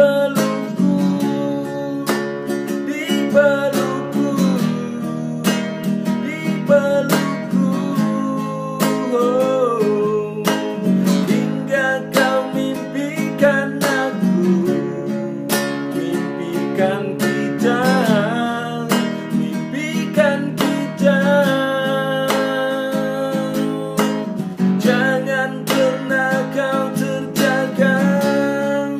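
Classical guitar strummed in steady chords, with a man singing over it.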